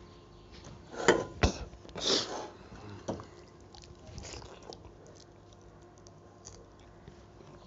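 Close-miked mouth sounds of eating rice and lentil dal by hand: a cluster of wet smacks and a slurp about one to two seconds in, the loudest part, then quieter chewing with small clicks.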